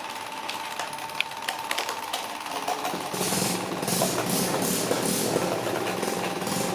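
A woodworking power tool running with a steady mechanical hum and chatter. It gets louder and rougher about three seconds in, with a hiss that swells roughly twice a second.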